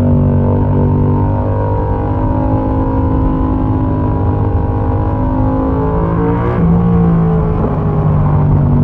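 Yamaha MT-07's 689 cc parallel-twin engine running under way through a Mivv exhaust with the dB killer removed, heard from on board. The engine note holds fairly steady, dipping and shifting in pitch about six seconds in.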